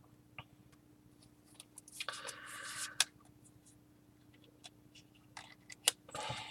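Trading cards being handled and slid past one another: faint scattered clicks and taps, with a short rustle of cards sliding about two seconds in that ends in a sharp click.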